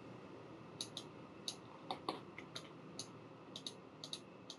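Faint, irregular clicks of a computer mouse, about a dozen of them, some in quick pairs, over a low room hiss.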